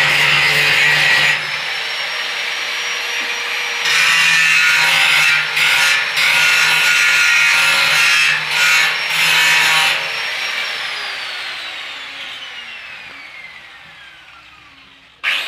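Angle grinder working the steel stair railing: it bites into the metal in loud stretches and runs free with a steady whine between them. About ten seconds in it is switched off and spins down with a long falling whine, then starts up again just before the end.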